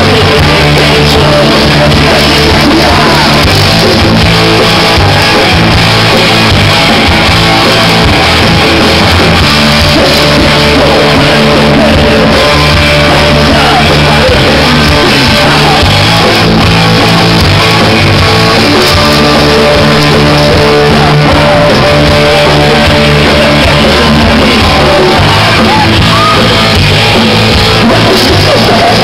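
Live rock band playing loud, with electric guitar and sung and shouted vocals.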